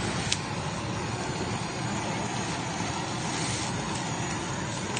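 Handheld gas torch blowing its flame steadily over pork grilling on a charcoal grill, with one sharp click about a third of a second in.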